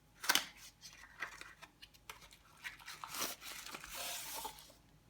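Product packaging being torn open and handled: a sharp rip about a quarter second in, scattered small crinkles and taps, then a longer rustling tear from about three seconds in.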